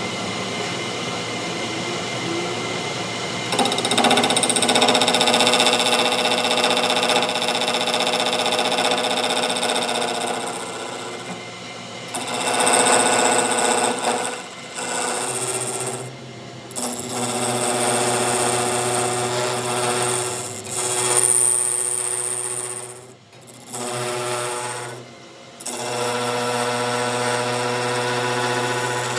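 Workshop power tools running. A steady machine whine keeps shifting in pitch under load and cuts out briefly a few times before starting again.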